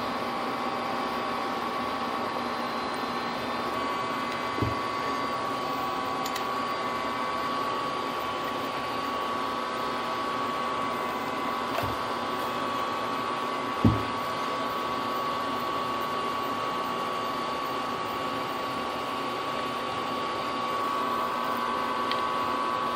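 Steady mechanical hum with a thin steady whine, over which come a few light clicks and one sharper knock about two-thirds of the way through, as a hex key and metal parts are handled on a mini lathe headstock.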